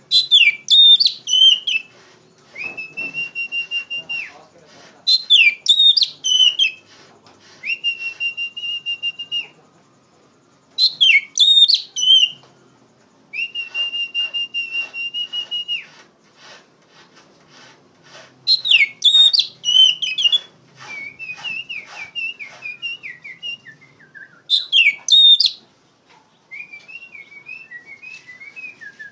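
Oriental magpie-robin (kacer) singing loudly: repeated phrases of quick sharp chirping notes, each followed by a long steady whistle held for about a second and a half, then a lower warbling run in the second half.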